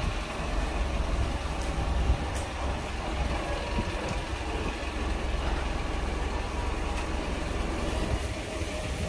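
Steady low rumble of a vehicle engine running, with a faint hiss above it.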